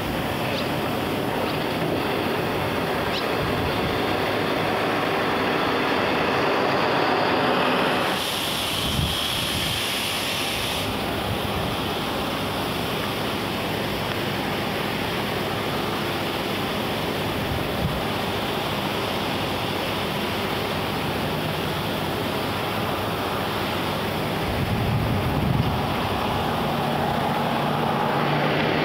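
Steady rushing outdoor noise with no clear single source. Its character shifts about eight seconds in, and there is a short low rumble with a small thump near the end.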